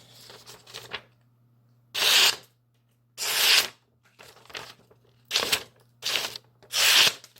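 A Boker Magnum folding knife's 440A stainless steel blade slicing through sheets of A4 printer paper: five short, sharp papery swishes, one cut after another, the last coming about a second after the two before it.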